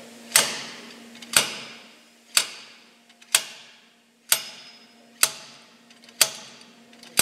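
Slide hammer's sliding weight striking its stop in sharp metallic clanks, about one a second, eight in all, each ringing briefly. The hammer is pulling an axle bearing out of a Corporate 9.25 axle housing.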